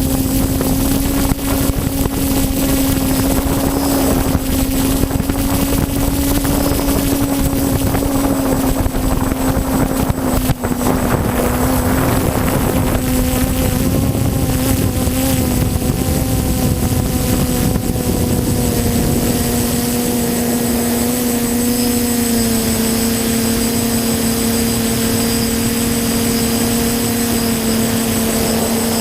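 TBS Discovery quadcopter's motors and propellers droning in flight: a steady hum over a rushing hiss, its pitch dropping slightly about three-quarters of the way through.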